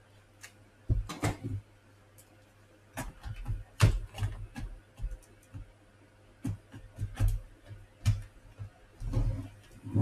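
Irregular clicks, taps and light knocks of hands handling a laptop, some with a dull thud, over a faint steady low hum.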